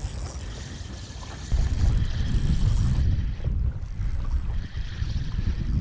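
Wind buffeting the microphone: a low, gusty rumble that jumps much louder about one and a half seconds in.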